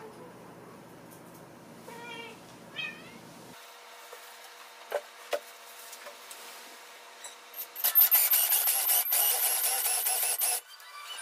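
A cat meows a few short times in the first three seconds, and two light knocks follow. From about eight seconds in, a bit boring into a particleboard panel gives a loud, harsh, scraping rasp that lasts nearly three seconds.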